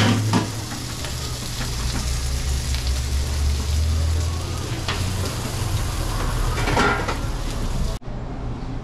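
Hot dogs, onions and peppers sizzling on a flat-top griddle, with a steady low hum underneath and a few sharp clicks of metal tongs against the griddle. The sizzle cuts off suddenly near the end.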